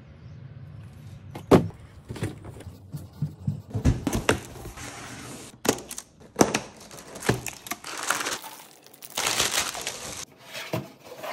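Clear plastic packaging being cut with scissors and handled, with several sharp knocks of the package and panels. Near the end comes a long stretch of crinkling as the plastic wrap is pulled off.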